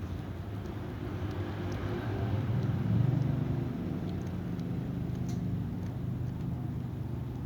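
A motor vehicle's engine running steadily with a low hum. It swells to its loudest about three seconds in, like a vehicle passing close, then settles back.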